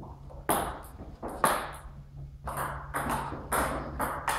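Table tennis ball clicking off the bats and the table in a fast rally, about two hits a second, with a pause of about a second midway.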